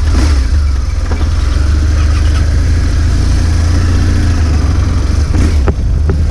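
Adventure motorcycle engine running, a loud steady low rumble throughout, with a couple of short knocks about five and a half seconds in.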